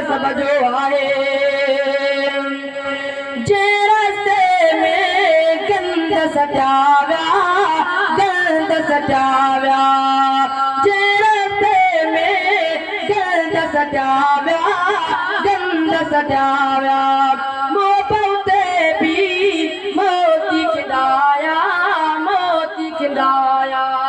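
A young man singing a Sindhi naat (molud) solo through a microphone, in long held notes broken by quick ornamented turns, with no instruments or beat behind the voice.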